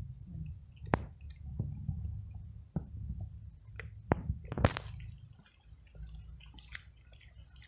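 Cat eating dry kibble: irregular sharp crunches and clicks as it bites and chews the pellets, the loudest about a second in and again around four to five seconds.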